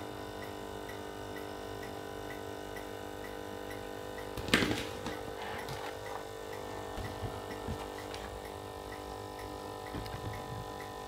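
Coffee machine's electromagnetic vibratory pump humming steadily under power, with a faint regular ticking about twice a second; the pump is building pressure in a line that the owner believes is clogged with mineral scale. A brief rustle of handling about four and a half seconds in.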